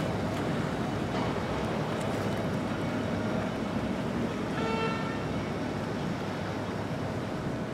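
Triple Mercury 450R outboard engines on a passing Nor-Tech center-console boat, running at low speed with the hull wash splashing, a steady rumble and hiss. A short pitched note sounds briefly about halfway through.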